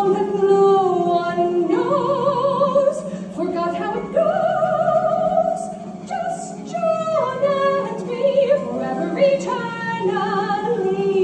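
A female soprano sings long, high notes in an operatic style with marked vibrato. The melody steps and glides between pitches over a steady sustained accompaniment.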